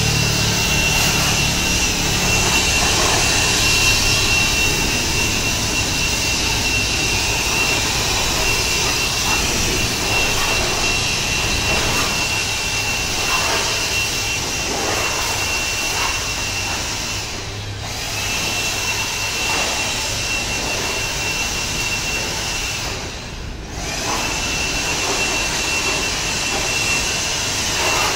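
Makita DUB185 18V cordless blower running: a rush of air with a steady high-pitched fan whine. It briefly cuts out twice in the second half, then runs again.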